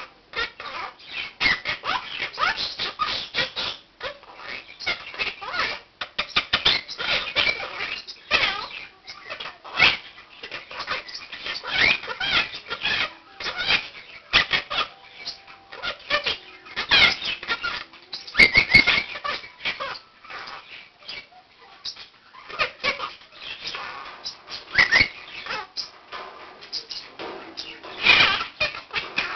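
Quaker (monk) parakeet and other pet birds chattering and squawking: a dense, continuous stream of short calls, with a few louder bursts.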